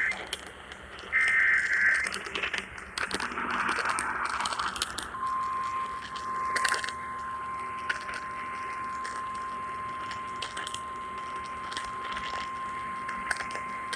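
Emergency Alert System SAME header data bursts, two short warbling bursts of paired tones in the first two seconds, followed from about five seconds in by the steady single-pitch 1050 Hz NOAA Weather Radio warning alarm tone. Both come over noisy radio reception with scattered clicks, and they signal the start of a weather warning broadcast.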